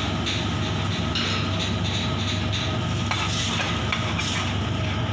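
Cream-based white sauce bubbling and sizzling in a steel frying pan over a gas flame, with a metal ladle stirring through it toward the end. A steady low roar runs underneath.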